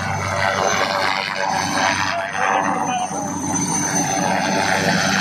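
Army HAL Cheetah helicopter's turbine engine and rotor running on the ground: a loud, steady mechanical noise with a constant hum and a thin high whine, with onlookers' voices mixed in.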